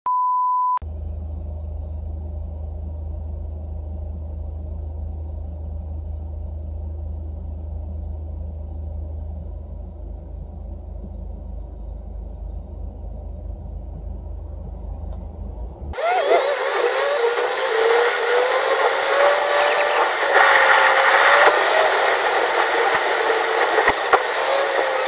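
A short test-tone beep, then the steady low drone inside a BMW 3 Series GT's cabin while the car stands still. About two-thirds of the way through, it cuts suddenly to much louder road and wind noise inside the car moving at speed.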